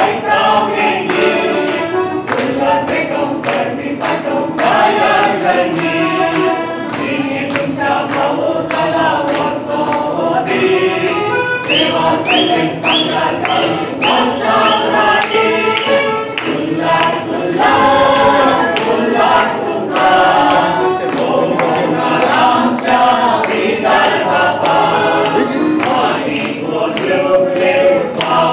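Small mixed choir of older men and women singing together, with accordion accompaniment.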